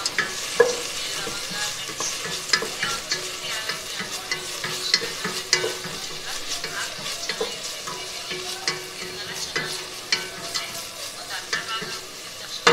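Onion, garlic, ginger and green chili frying with masala in a steel pot, sizzling as a wooden spatula stirs them, with frequent scrapes and knocks of the spatula against the pot and a sharp knock at the end.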